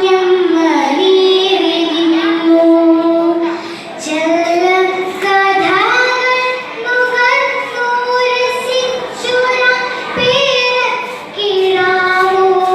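A child's voice reciting verse in a sung, melodic chant: long held notes with slides between pitches, broken by short pauses between lines.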